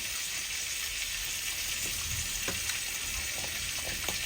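Beef steak frying in butter in a hot pan: a steady sizzle with scattered small pops and crackles.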